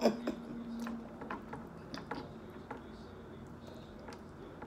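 Faint, irregular mouth clicks and smacks from close-miked chewing, with a brief low hum at the start.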